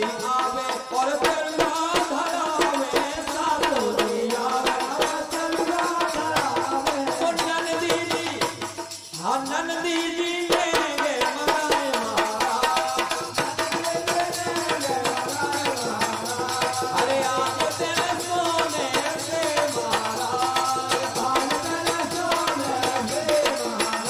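Bundeli folk bhajan music: a sung melody over a dholak drum beat and jingling rattle-like percussion. There is a brief break in the melody about nine seconds in.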